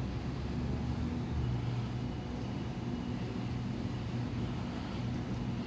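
A double-deck electric suburban train standing at the platform, its onboard equipment giving a steady low hum.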